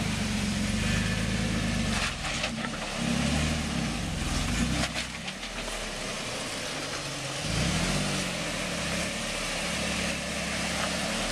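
Toyota Tacoma pickup's engine running at low revs while rock crawling, its pitch rising and falling with the throttle, with a few short knocks about two and five seconds in.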